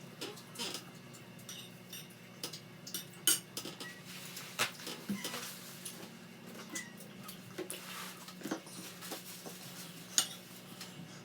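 Utensils clinking and tapping against dishes in irregular, scattered strikes during a meal, the sharpest a little over three seconds in.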